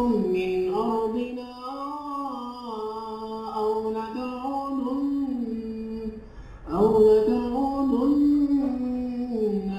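A man's recorded Quran recitation playing back in a drawn-out melodic tajweed style, with long held notes that slide and ornament. The tone is being shaped by a bass and treble effect. The voice breaks briefly for a breath about six seconds in and comes back louder.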